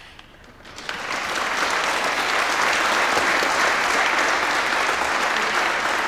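Audience applauding, starting about a second in and holding steady.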